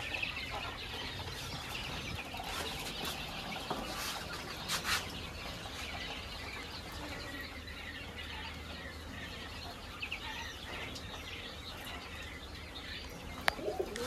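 Caged quail and chickens moving about: a steady rustle with a couple of short wing flaps about four and five seconds in, and faint clucking.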